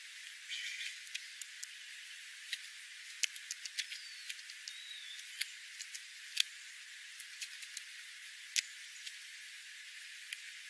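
Small birds feeding on seed on gravel: scattered sharp pecking clicks over a steady hiss, with a few faint high chirps, two of them about four seconds in.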